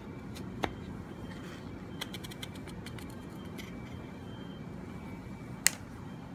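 Light clicks and taps of wood on wood as a thin strip is handled in a wooden marking gauge: one click, a quick run of small ticks about two seconds in, and a sharper click near the end, over a steady low hum.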